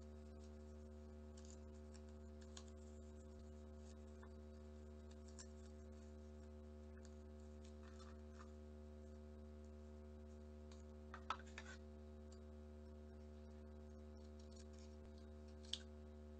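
Faint rustling and creasing of origami paper being folded by hand over a steady low hum, with a short cluster of sharper clicks partway through and one sharp snip of scissors cutting the folded paper near the end.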